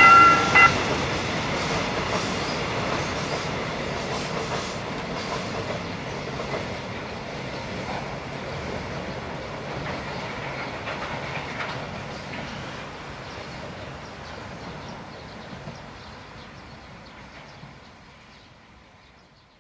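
A train moving away from a level crossing, its wheels clicking over the rail joints and the rumble fading steadily until it is faint. The crossing's warning bell, a steady pulsing ring, cuts off just under a second in.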